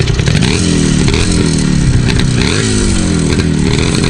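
Motorcycle engine revving under the rider, its pitch climbing and dropping back several times.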